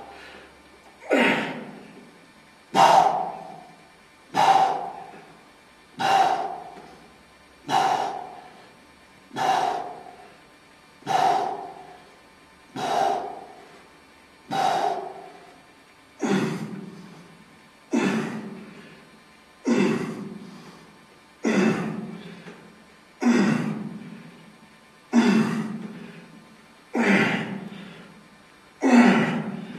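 A man breathing out hard with each repetition of a heavy one-arm dumbbell row. The sharp, gasping breaths come about every second and three quarters, about seventeen in a row, each starting abruptly and trailing off.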